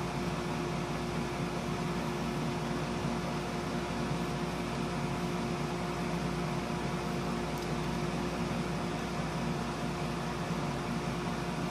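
Steady hum and hiss of an electric blower motor running without change, with a few fixed hum tones and no hammer blows.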